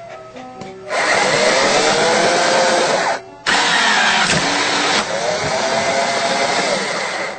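A small motor running loudly in two stretches, its pitch rising at the start of each, with a short break a little after three seconds in.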